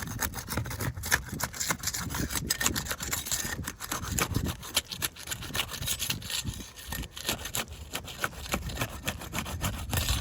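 Asphalt roof shingles being worked loose: a tool scraping and rubbing under the tabs, breaking the factory seal strips, in irregular rasping strokes with sharp crackles.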